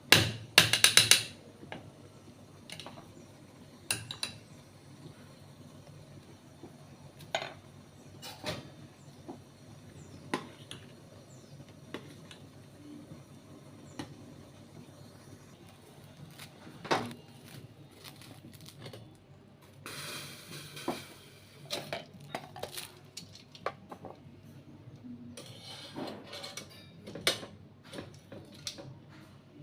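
Spoon and dishes clinking as honey is spooned out and mixed: scattered sharp clinks, loudest in a quick flurry at the start, with a brief rustling noise about twenty seconds in and another run of clinks near the end.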